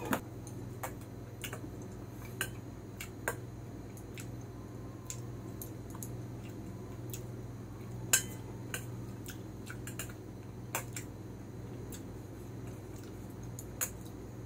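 Metal spoon clinking now and then against a stainless steel soup bowl while eating, a dozen or so light clicks with one sharper clink about 8 seconds in, over a steady low hum.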